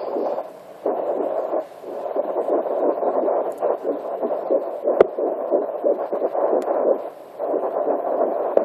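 Fetal heartbeat at nine weeks picked up by a handheld fetal Doppler and played through its speaker as a fast, pulsing whoosh. The signal fades briefly a few times as it drops in and out. A single sharp click comes about five seconds in.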